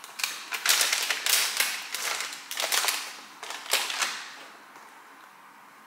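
Grocery bags and food packaging rustling and crinkling as they are handled, a quick run of crackly bursts that dies down after about four seconds.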